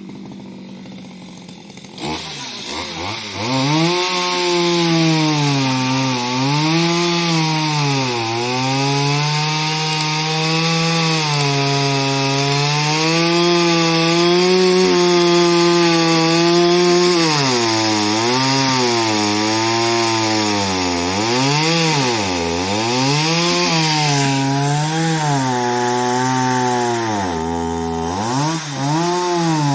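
Chainsaw cutting through the trunk of a fallen tree. It picks up about two seconds in and runs at high revs, its pitch dipping and recovering as the chain bites into the wood, with quicker dips over the last ten seconds.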